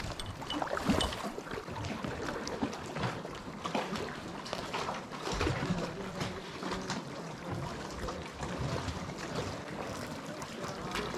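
Lake water splashing and trickling around a kayak as it is paddled, with irregular paddle splashes and small waves lapping at the hull. The loudest splash comes about a second in.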